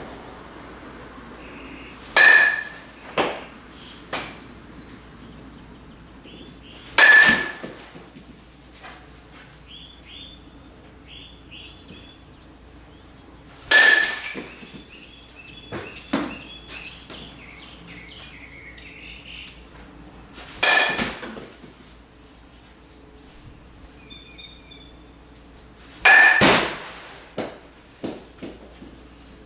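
Metal baseball bat hitting a ball five times, about every six seconds, each hit a sharp ringing ping. Each hit is followed by a few softer knocks and bounces.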